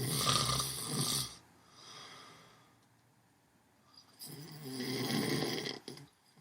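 Snoring in sleep: a loud rasping snore at the start lasting about a second, a faint breath around two seconds in, then another long snore from about four to six seconds in.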